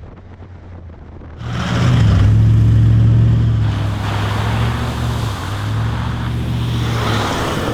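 Four-wheel-drive vehicle driving, its engine running steadily under load over a rushing noise. The sound comes in suddenly about a second and a half in and is loudest for the next couple of seconds.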